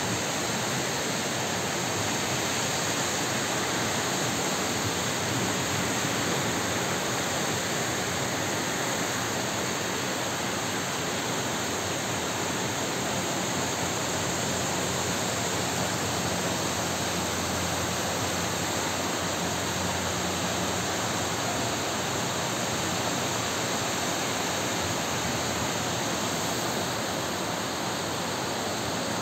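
Heavy downpour: a steady rushing noise of rain falling and water running off.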